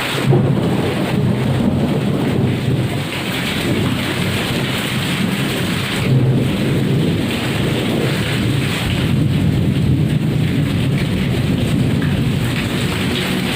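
Heavy rain pouring steadily while thunder rolls in a long low rumble. The rumble starts at the very beginning and swells again about six seconds in.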